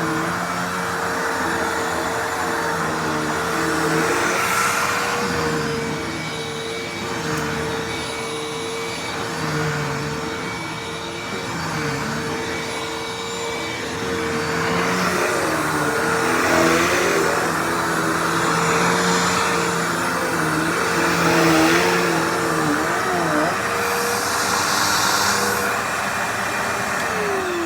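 Hoover Tempo bagless upright vacuum cleaner running loud, with a steady motor whine and airflow noise that shifts as it is pushed over the floor. Right at the end it is switched off and the motor whine falls away as it spins down.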